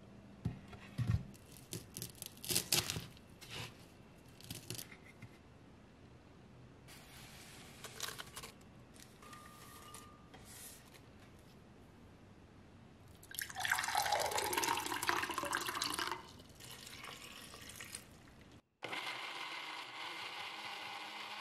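Kitchen handling sounds: light knocks and rustles as parsley is handled and dropped into a glass blender jar, then about three seconds of liquid being poured into the jar. After a cut near the end, a steady hum.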